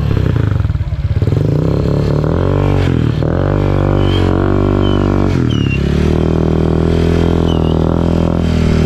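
Honda Click 125 V3 scooter's single-cylinder engine running through an Apido V4 aftermarket exhaust: a 2-inch pipe reworked with a straight-through screen inside. It is revved up and let back down a few times, then held at higher revs for a couple of seconds before dropping back near the end.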